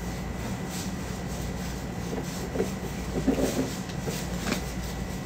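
Soft rubbing and handling noises over a steady low hum as an abaya is worked over with a standing garment steamer, with faint muffled speech a little past three seconds.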